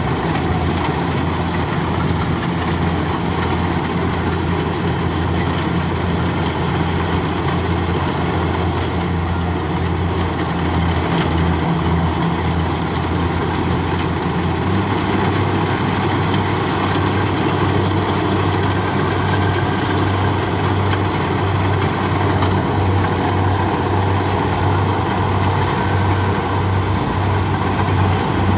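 Kubota rice combine harvester's diesel engine running steadily under load as the machine cuts and threshes rice. The engine note shifts about halfway through.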